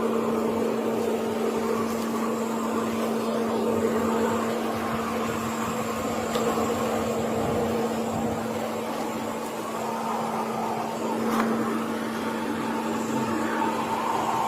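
Steady mechanical hum with one constant low tone under a haze of noise, with a faint click about eleven seconds in.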